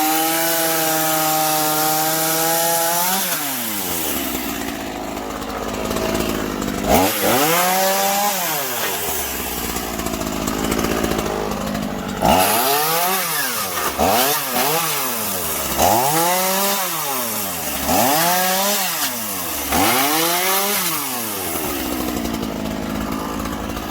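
Chainsaw cutting through the posts of a playset, the engine revving up and dropping back again and again: held high for the first few seconds, then five quick rev-ups in a row in the second half.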